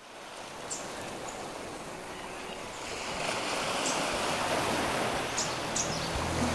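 Ocean surf rushing steadily, fading in and growing louder, with a few short high chirps over it. Music comes in near the end.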